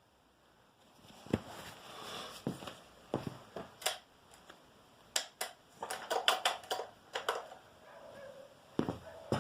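Irregular knocks, clicks and short scrapes of something being handled, starting about a second in; no engine running.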